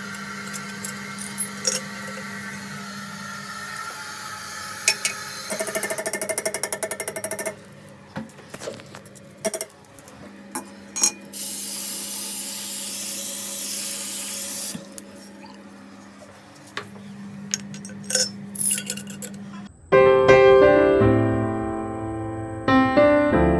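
A string of unidentified noises: a steady hum with scattered clicks, a loud rapid buzzing rattle lasting about two seconds, and a long stretch of hiss. Electronic music begins near the end.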